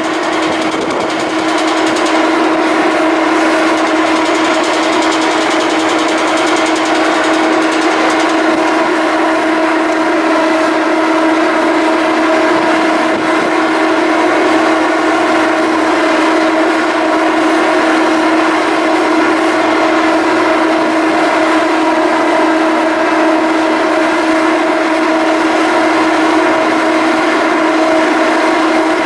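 Salish-class ferry's engines running with a loud, steady drone at one held pitch, rising a little in the first couple of seconds and then unchanging.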